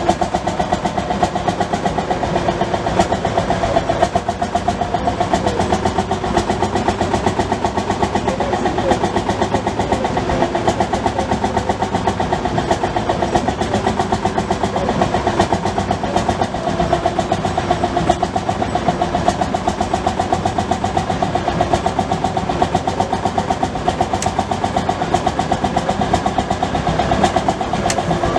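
Vintage tractor engine running steadily at a constant speed with an even, rhythmic firing beat.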